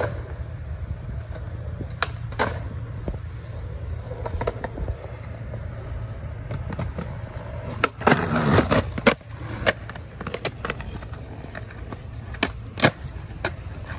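Skateboard wheels rolling on concrete, a steady low rumble, broken by sharp clacks of the board several times, with a louder clatter about eight seconds in.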